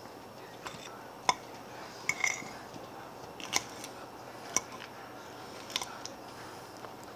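Metal utensil clinking and scraping against a plate while eating: about half a dozen sharp, irregular taps.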